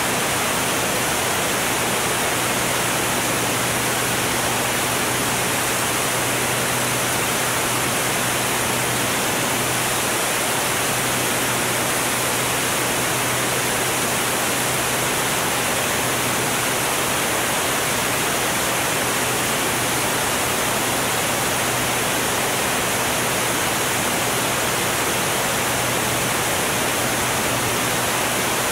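Steady rush of wind over an outside-mounted camera on a Formula One class racing airplane flying at about 200 mph, with a faint steady low hum from its engine underneath.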